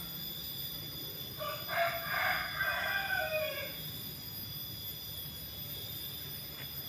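A rooster crowing once, a single call of about two seconds starting a little over a second in.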